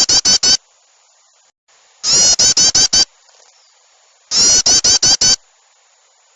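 Bird-lure recording of excited bird calls, mixing yellow-vented bulbul (trucukan) with small songbirds. The calls come in loud bursts of about six rapid notes, one burst roughly every two seconds, looping over a faint hiss.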